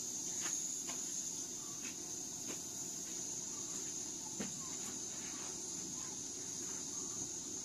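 Steady high-pitched insect chorus, with a few soft ticks and rustles of hands working through a heap of rose petals.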